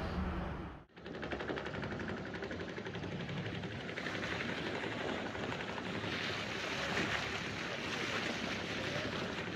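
The boat's Yanmar three-cylinder diesel engine running under way with a rapid, even beat, over water rushing and splashing along the hull, the rush growing louder from about six seconds in.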